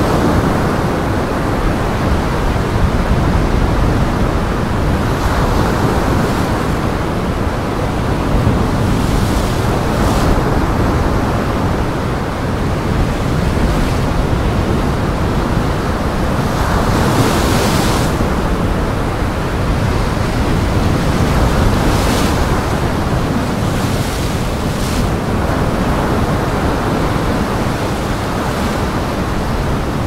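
Strong wind roaring across the microphone over heavy Lake Michigan surf, a steady dense noise with a few brief louder surges.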